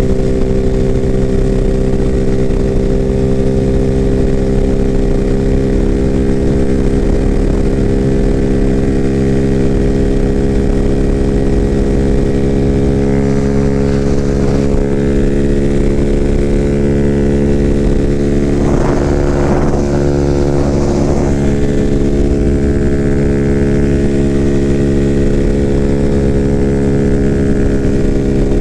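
Freedom Fighter 200 EFI motorcycle engine holding a steady pitch at highway cruise in sixth gear, its exhaust open with the factory silencer baffle removed, over a low rush of wind noise.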